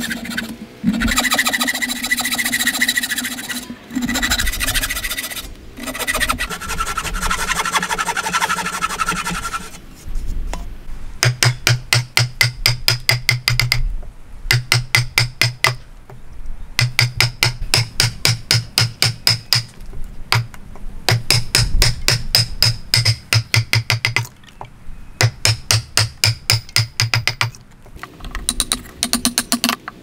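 A frame saw rasping back and forth through a block of wood for about the first ten seconds. After that, a hammer drives a chisel into the wood in quick runs of sharp blows, each run lasting a few seconds with short pauses between.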